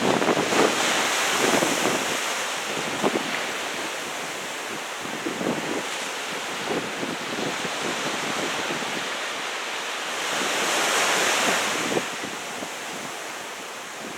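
Wind buffeting the microphone over the steady noise of breaking surf as a typhoon approaches. The wind swells in gusts, once in the first couple of seconds and again about ten seconds in.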